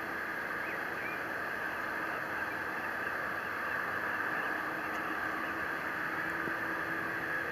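Distant jet engines of a Boeing 787 airliner taxiing, a steady hiss with a faint low hum.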